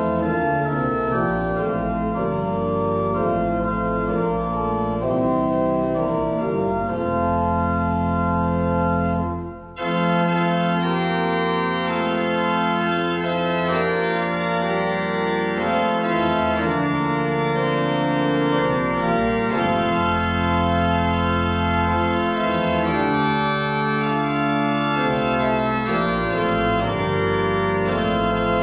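Organ playing a hymn tune in sustained chords, with a brief break about nine and a half seconds in before the next verse begins.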